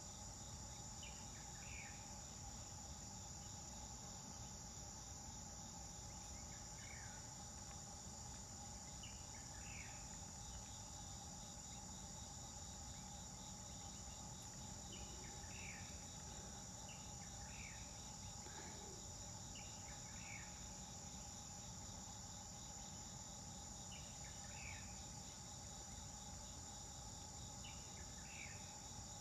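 Faint, steady, high-pitched insect chorus of crickets or cicadas, with brief high chirps every few seconds, over a low outdoor rumble.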